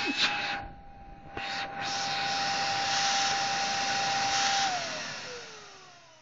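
Zelmer Typ 338.0 vacuum cleaner motor, its carbon brushes freshly bedded in, running with a steady whine over a rush of air; the sound briefly dulls about a second in. Near the end it is switched off and the motor spins down, its whine falling in pitch as it fades.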